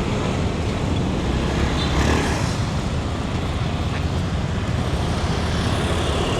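Steady city street traffic noise, the running of passing cars and motorbikes.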